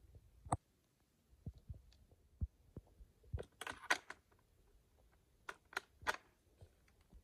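Faint, scattered clicks and light knocks of handling: an A-tec H2 suppressor being fitted onto the muzzle of a Blaser R8 rifle. The knocks are irregular, with a small cluster in the middle.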